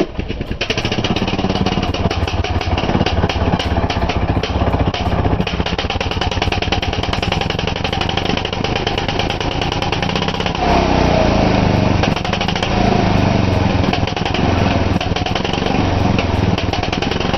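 Two-stroke chainsaw running loud and fast, starting abruptly at the outset; about ten seconds in its note drops and roughens.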